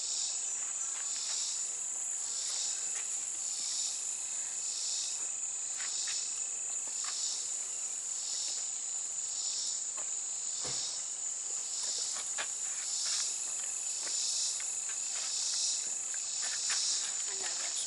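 Insects calling in summer woods: a steady high-pitched trill, with a second rhythmic chirping that pulses about once a second. A few faint clicks come through underneath.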